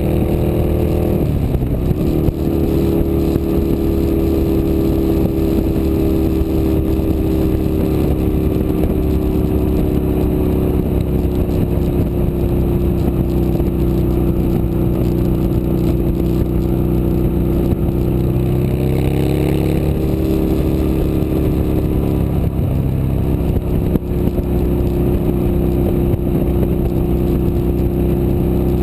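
Harley-Davidson XR1200's air-cooled V-twin running through a new aftermarket muffler. The revs fall back about a second in, then hold steady, with a slow rise and fall of the revs about two-thirds of the way through.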